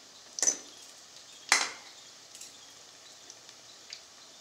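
Metal wire-mesh skimmer clinking against a steel kadhai twice, about a second apart, the second knock louder and ringing, with a couple of light taps later. Under it, a faint steady sizzle of pakoras deep-frying in oil.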